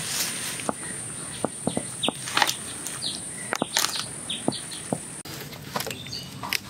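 Hands digging loose, dry soil away from an elephant foot yam tuber: irregular crumbling and scraping of earth with scattered small clicks.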